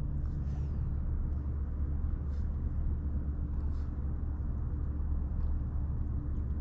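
A steady low rumble with a few faint light ticks over it.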